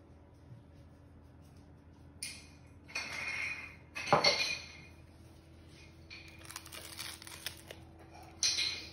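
Someone biting into and chewing a sushi cone wrapped in toasted nori, the crisp seaweed crackling in a few short bursts.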